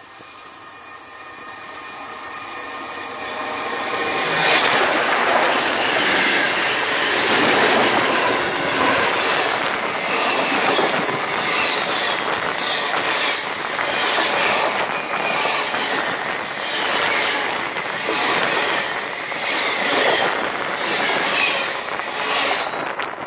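Steel wheels of the Union Pacific Big Boy steam train rolling directly overhead on the rails, building up over the first four seconds or so to a loud, steady rumble with a sharp wheel click about once a second.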